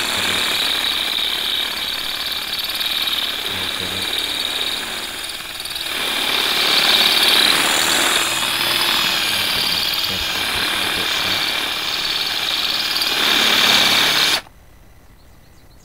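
Cordless drill running under load, drilling out the metal locator pin of a sliding-door roller bracket. The drilling eases briefly about six seconds in, picks up louder again, and stops suddenly near the end.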